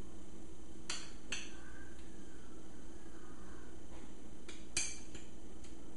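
A spoon clinking against a bowl and plate as guacamole is scooped and spread: two light clicks about a second in and a few more near the end, over a faint steady hum.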